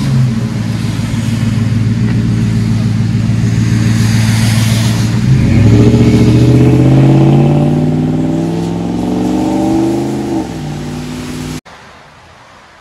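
Ram 1500 pickup's 4.7-litre V8 through an aftermarket exhaust, running steadily as the truck rolls by, then accelerating away in a long rising rev that falls off about ten seconds in, with tyre hiss on wet pavement. Near the end the sound cuts suddenly to a quiet room tone.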